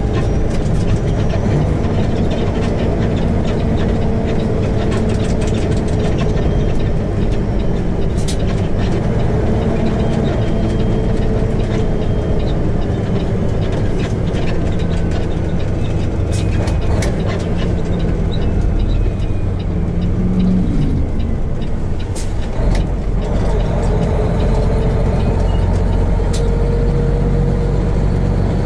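Peterbilt semi truck's diesel engine running steadily under way, with road and cab noise, heard from inside the cab. A few sharp clicks are scattered through it.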